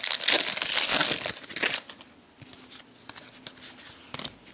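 A foil trading-card pack wrapper crinkling as it is handled and torn open for about the first two seconds, then quieter rustling and light clicks of cards being handled.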